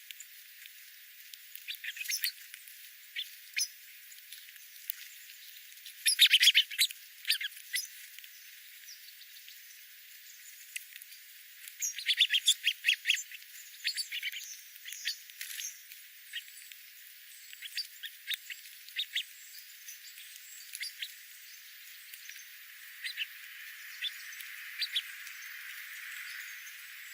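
Small birds chirping in short, rapid clusters of sharp notes, the loudest runs about six and twelve seconds in, with a soft hiss rising near the end.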